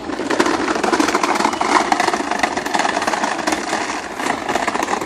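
The hard plastic wheels of a toddler's ride-on toy car rattle continuously as it is pushed over pebble cobblestones, making a dense clatter of small clicks that starts suddenly.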